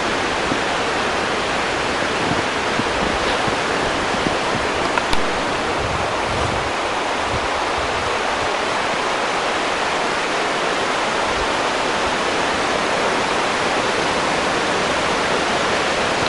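Steady, even rush of a fast-flowing stream.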